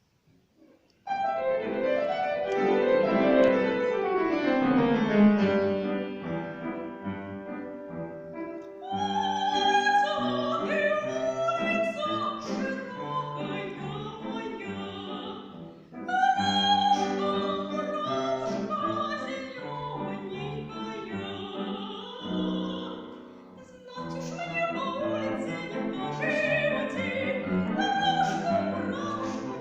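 Solo classical singing with piano accompaniment: the piano starts about a second in with downward-running figures, and a voice enters about nine seconds in, singing in an operatic style in long phrases.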